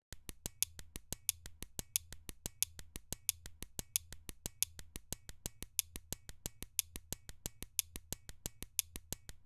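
Found-sound percussion samples of pen clicks and snaps, played by a software arpeggiator in eighth-note triplets: a quick, even run of clicks, about six a second, some hits louder than others.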